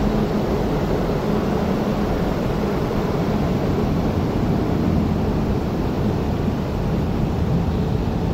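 Ocean Express cable-hauled funicular train pulling out of its station past the platform: a steady rumble of the moving train with a constant hum.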